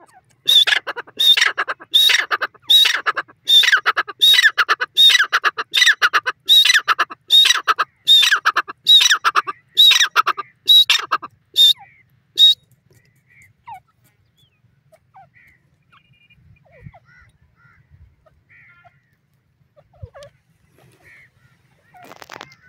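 Grey francolin calling: a run of about sixteen loud calls, evenly spaced a little under a second apart, that stops about twelve seconds in. After that there are only faint, scattered sounds.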